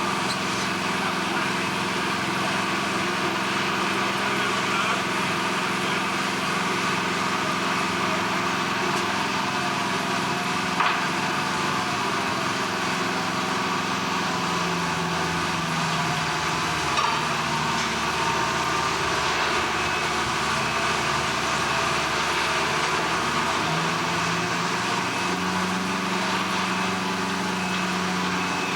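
Steady engine-driven machinery running, its lower hum shifting in pitch a couple of times, over a constant industrial din, with two sharp knocks about 11 and 17 seconds in.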